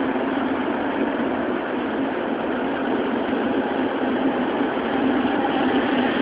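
Toei Oedo Line 12-000 series linear-motor subway car running at speed through a tunnel, heard from inside the car: a steady rumble of the running gear and wheels on the rails, with a low hum the strongest part.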